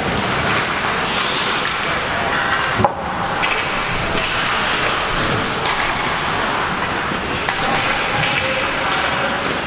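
Ice hockey game sound in an ice arena: a steady wash of noise from play on the ice, with one sharp crack about three seconds in.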